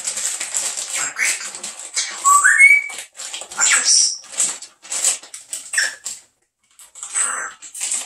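African grey parrot vocalising: a run of short, rough chattering sounds, with a rising whistle about two and a half seconds in.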